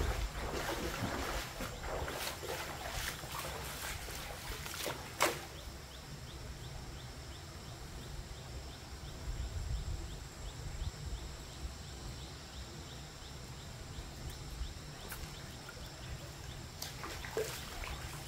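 Feet wading and splashing through shallow stream water for the first few seconds, with one sharp knock about five seconds in. Then a quieter stretch with a faint, even ticking over a low steady water-and-wind rumble, and splashing again near the end as the wading resumes.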